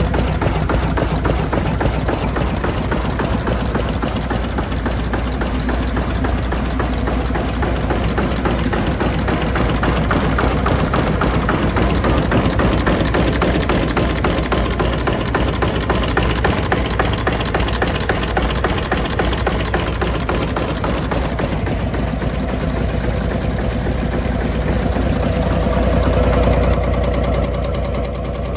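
Vintage R.A. Lister stationary engine running steadily with an even, rapid beat. The sound changes and drops slightly near the end.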